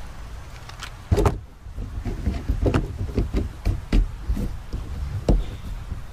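Hard plastic clicks and knocks as a Yak Attack kayak rod holder is fitted onto its ball mount on the canoe gunwale and its arm handled and tightened. There is a sharp knock about a second in, then a run of small clicks and rattles.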